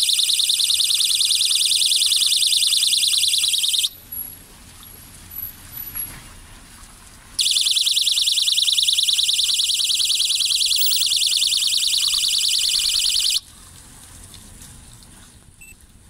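Solar-powered ultrasonic animal repeller's speakers sounding a loud, high-pitched, rapidly pulsing electronic alarm tone. It cuts off about four seconds in and comes back after a pause of about three seconds for another six seconds or so.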